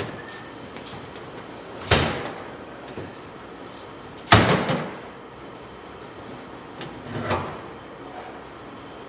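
Doors shutting: a slam about two seconds in, a louder one with a short echoing tail a couple of seconds later, and a softer thump near the end, over a steady low background.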